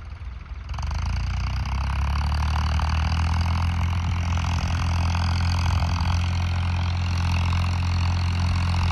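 Farmtrac 60 tractor's diesel engine working steadily under load, pulling a 13-tine cultivator through sandy soil. It gets louder about a second in, then holds an even note.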